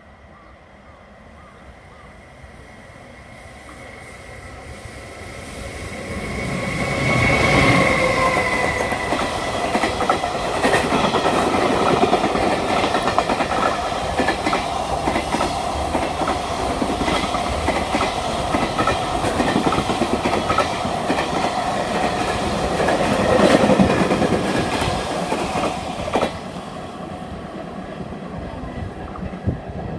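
Freight train hauled by an EF510 electric locomotive approaching and passing, its wheels clattering over the rail joints. The sound builds over the first several seconds, stays loud for about twenty seconds of rapid clickety-clack, then drops suddenly near the end.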